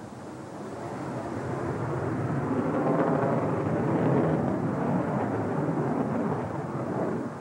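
Twin-turbofan jet noise of a MiG-29 fighter flying past: a roar that swells to a peak about three to four seconds in and dies away near the end.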